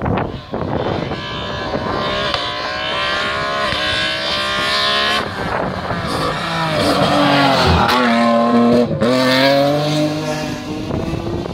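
BMW competition car accelerating hard at full throttle, its engine revs climbing and falling back at each gear change, loudest as it goes by about eight to nine seconds in.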